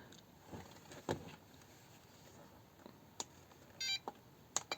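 A few faint, sharp clicks of a FlySky FS-i6X radio transmitter's buttons and switches being worked, with one short electronic beep from the transmitter a little before four seconds in.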